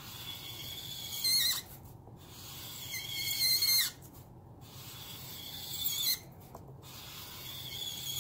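Black Zongii alcohol marker's felt chisel tip dragged in long strokes across paper, squeaking. About four strokes, each scraping louder and ending in a high squeal, roughly every two and a half seconds.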